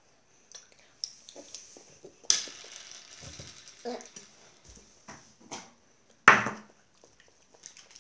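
Jelly beans clicking and rattling as a hand picks through them in a plastic bowl, with scattered light handling clicks and a short, louder noisy burst about six seconds in.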